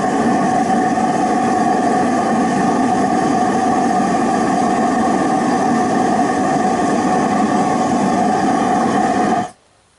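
Steady drone of a homemade waste-oil furnace running, its forced-air supply and burner going full, then shut off suddenly near the end.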